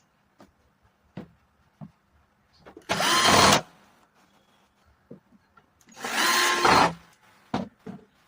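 A small power tool's electric motor run in two short bursts about three seconds apart, each with a whine that rises as it spins up, with a few light clicks and knocks between.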